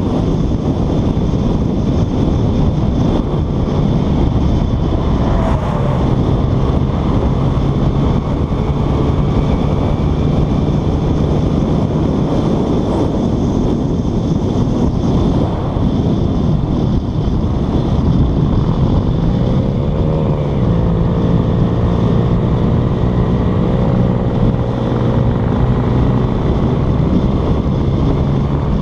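Motorcycle engine running at highway speed under heavy wind rush on the helmet camera's microphone. The engine note dips and rises again about twenty seconds in.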